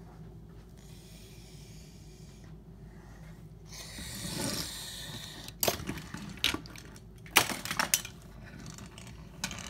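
Small hard objects knocking and clattering: a rustling swell about four seconds in, then several sharp knocks over a low steady hum.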